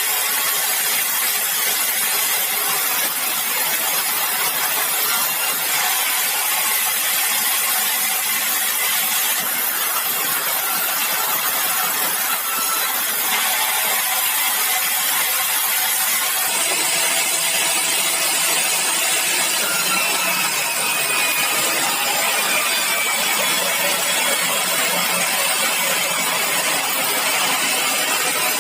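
Sawmill saw running steadily while cutting bengkirai hardwood timber. It is a continuous loud mechanical noise whose character shifts a few times as the cut goes on.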